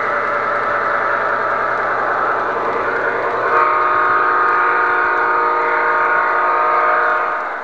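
MTH O-gauge model train running on three-rail track, with wheel and motor noise. About three and a half seconds in, its onboard DCS sound system sounds a long, steady multi-tone horn that stops near the end.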